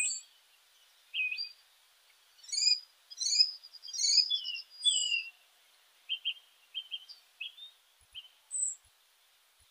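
Birds chirping: a string of short high whistled chirps and calls, many sliding down in pitch, with a quick trill about four seconds in and brief gaps between calls.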